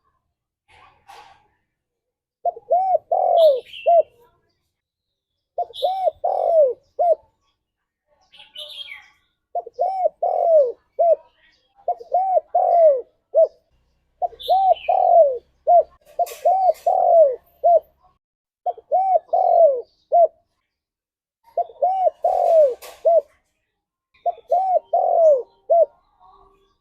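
Spotted dove cooing its song over and over: about nine phrases, each three or four arching coos, coming every two to three seconds, with faint higher chirps among them.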